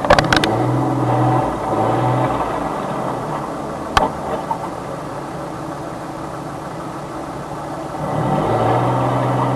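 Car engine and road noise heard from inside the car's cabin, with a steady low hum in the first two seconds and again near the end. Sharp clicks at the start and about four seconds in.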